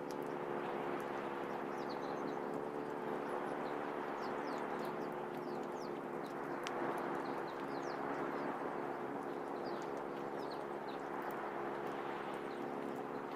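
Steady outdoor ambience on an exposed tidal flat: an even wash of noise under a low steady hum, with many short, high, falling chirps of small birds scattered throughout.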